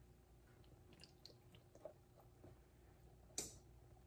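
Near silence, with faint soft drips and squishes of thick syrup being poured over pastry-wrapped apple dumplings in a glass baking dish. There is a single sharp click about three and a half seconds in.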